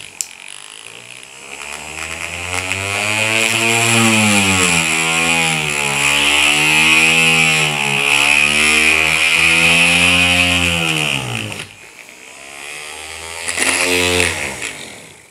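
Handheld electric drill boring a hole into a bamboo tube. The motor speeds up over the first few seconds, runs with its pitch wavering as the bit cuts, and winds down after about eleven seconds, then runs again briefly near the end.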